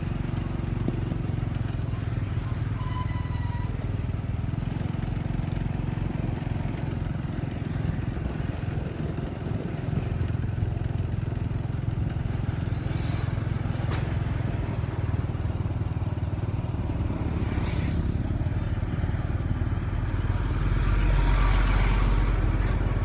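Motor scooter engine running steadily at low riding speed, heard from the scooter itself, with road noise; a louder low rumble comes in near the end.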